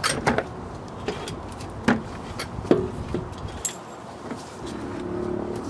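Several separate sharp metallic clinks and knocks of hand tools and bolts against a school bus starter motor and engine block while the starter is being fitted. Steady background music comes in near the end.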